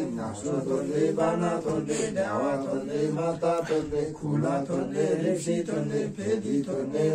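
A voice chanting in a continuous sing-song recitation, like a mantra, with short breaks between phrases.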